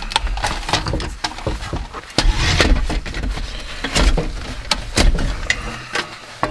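Irregular clicks, knocks and clatter of a small mechanical part being taken apart by hand with tools.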